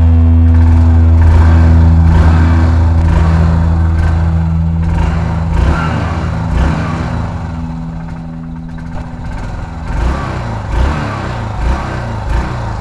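Yamaha SR400's air-cooled single-cylinder engine running after an oil change, circulating the fresh oil, with uneven low thuds standing out near the end. Over the first half a steady low drone fades out.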